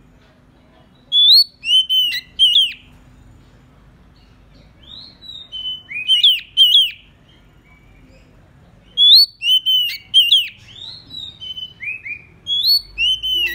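Oriental magpie-robin singing its territorial song, the call that lures rival males. Three bouts of loud, clear whistled phrases made of quick rising and falling notes, a few seconds apart, the last the longest.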